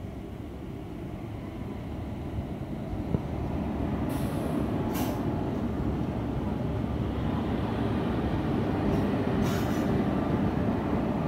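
Twin WAG-7 electric locomotives of a freight train passing close by, a steady rumble of wheels and running gear that grows louder over the first few seconds and then holds. Brief high-pitched bursts come about four and nine seconds in.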